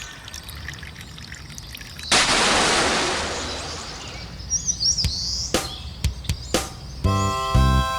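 Birds chirping, then a sudden loud rush of noise about two seconds in that fades away over two seconds, followed by a few sharp knocks. Near the end a railway level crossing alarm starts ringing, about two strokes a second.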